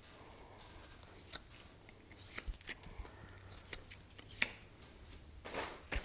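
Knife cutting through hide and meat at a hanging deer carcass's neck: scattered small clicks and crackles, the sharpest about four and a half seconds in. Louder rustling near the end.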